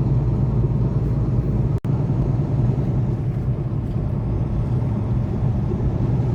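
Semi truck cab noise while driving: the diesel engine's steady low drone mixed with road noise. The sound drops out for an instant a little under two seconds in.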